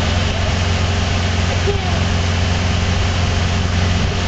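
150-horsepower outboard motor running the boat at speed, a steady low drone, with water rushing and churning in the wake.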